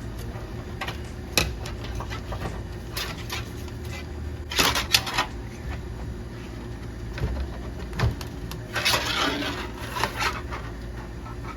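Irregular clicks, taps and scraping as a cable and coat hanger are fished through a vehicle's plastic pillar trim and grommet, with louder rustling and scraping twice, about four and a half and nine seconds in.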